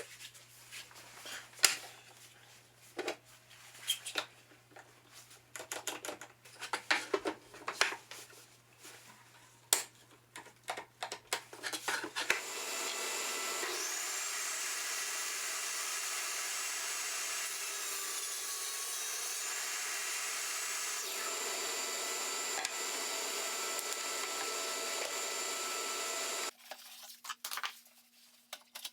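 A string of scattered knocks and clicks of wood and tool handling. About twelve seconds in, a Dewalt compact table saw starts and runs steadily for about fourteen seconds, plausibly making a rabbet cut with the board guided along the tall auxiliary fence, then cuts off abruptly.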